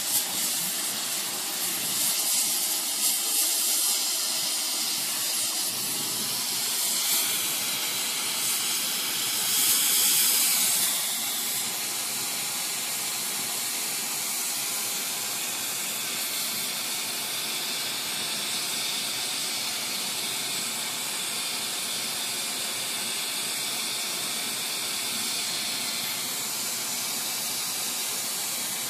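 Oxyacetylene torch with a rosebud tip burning with a steady hiss, heating a Damascus blade's edge for differential hardening. The hiss swells louder for a second or two about ten seconds in.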